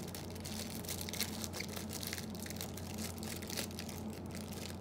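Thin plastic wrapping crinkling and crackling as it is pulled open by hand, in irregular crackles, over a steady low hum.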